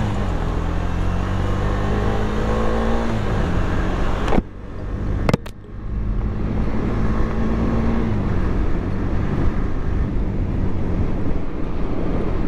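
Motorcycle engine pulling away under throttle, its note rising, cutting out sharply twice in the middle, then rising again, with wind rushing over the microphone.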